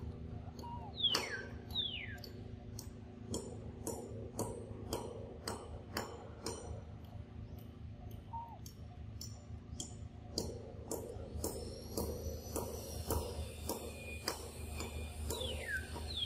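Macaque chewing mango pulp with a steady run of short, wet mouth clicks and smacks, about two or three a second. A bird gives a pair of quick falling whistles about a second in and again near the end.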